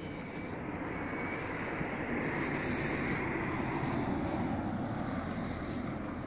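A car passing on a nearby road: its tyre and engine noise swells, peaks a few seconds in, then fades.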